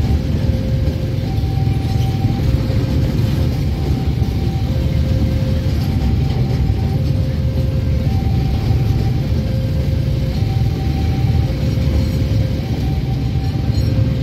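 Babaranjang coal train's open wagons rolling past at a level crossing, a steady low rumble of wheels on rail. Over it a crossing warning signal sounds, alternating a lower and a higher electronic tone, each about a second long.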